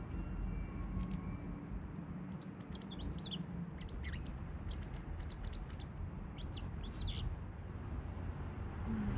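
White wagtail calling: a scatter of short, sharp high chirps, some sliding down in pitch, over a steady low background rumble.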